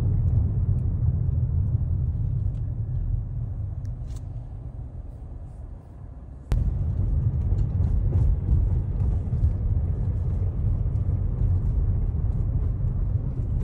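Car road and engine noise heard inside a moving car: a steady low rumble. It fades for a few seconds, then comes back suddenly with a click about halfway through.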